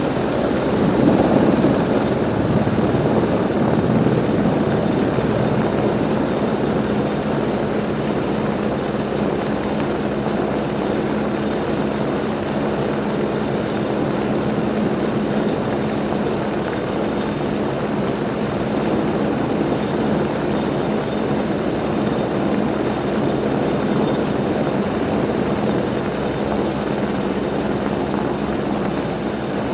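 Large military helicopter hovering, its rotor and turbine noise a steady, loud drone with a constant low hum, slightly louder about a second in.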